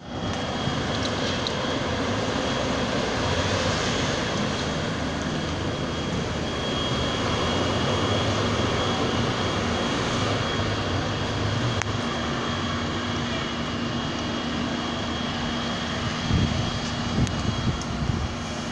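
Steady engine roar from fire engines running at the scene, with a faint high whine over it. A few louder knocks and clatters come near the end.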